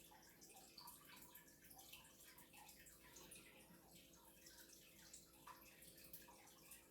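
Near silence, with faint, scattered small clicks and ticks.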